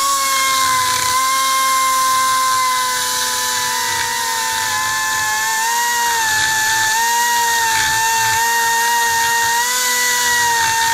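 Die grinder with a carbide burr starting up and running at a steady high whine while cutting a V-groove along a crack in an aluminum clutch housing, its pitch sagging a little at times as the burr bites.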